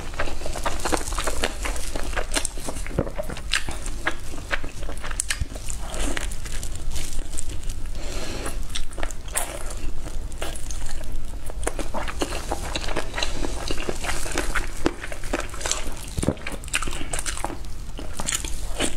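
Close-miked eating: biting and chewing saucy braised chicken wings held in the fingers, with many irregular wet mouth clicks and smacks.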